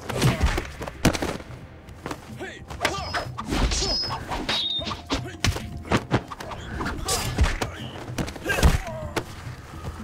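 Fight sound effects: a quick run of punch and kick thuds and whacks over background music, with a shout near the end.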